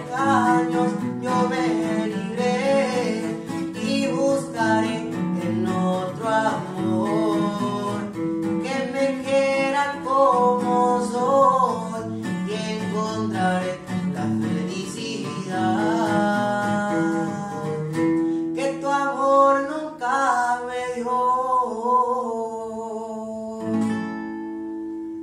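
A young man singing a slow ballad in Spanish over strummed acoustic guitar. The accompaniment thins about three-quarters of the way through, and the song ends on a held guitar chord that fades out.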